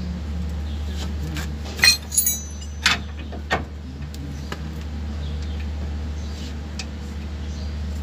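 Metal tools and steel parts clinking against each other: a cluster of sharp, ringing clinks about two seconds in, then two single clinks a second and a second and a half later, over a steady low hum.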